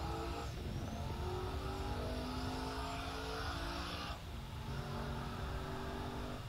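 Pickup truck engine at full throttle in a highway roll race, its pitch climbing through each gear and dropping at gear changes about half a second in and again about four seconds in, over wind and road noise. The shifts suggest a manual gearbox.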